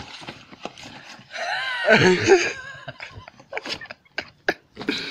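A person's brief laugh-like vocal sound about a second and a half in, then several short sharp clicks and rustles of gift packaging being handled.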